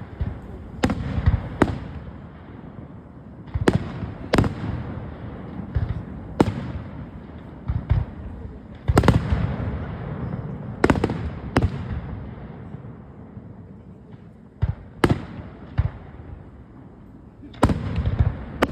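Aerial fireworks going off: about fifteen sharp bangs at irregular spacing, some in quick pairs, each trailing a low rumbling echo.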